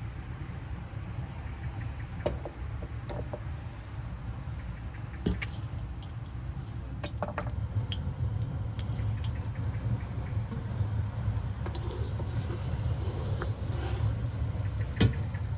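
Cooking in a cast-iron wok on a wood-fired stove: sharp knocks and clicks of a bowl and a wooden spatula against the metal as a lump of fat goes into the hot oil, with a faint sizzle as it begins to melt near the end. A steady low rumble runs underneath.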